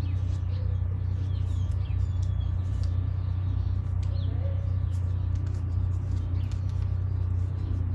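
A steady low hum under scattered clicks and crackles of a thin plastic seedling cup being squeezed and handled to free the root ball, with a few faint bird chirps.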